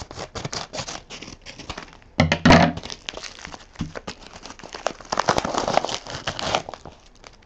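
A mail package being torn open by hand: crinkling, tearing and rustling of the wrapping, in irregular clicks and scrapes. The rustling gets louder in two stretches, with the loudest handling bump about two and a half seconds in.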